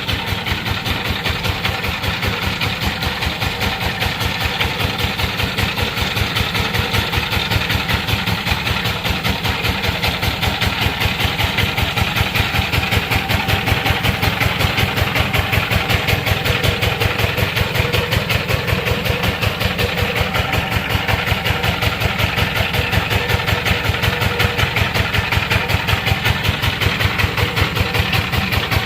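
Single-cylinder diesel engine of a Sifang power tiller running steadily, an even, rapid chugging that holds a constant pace.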